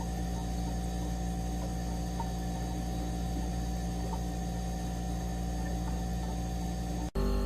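Synthetic anti-mosquito repellent tone: a steady low drone of several layered tones, with no change in pitch. About seven seconds in it drops out for an instant and switches to a louder, different steady hum.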